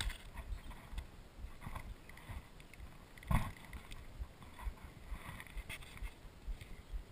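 Water slapping and knocking against a kayak hull in small, irregular knocks, with one sharper thump a little over three seconds in.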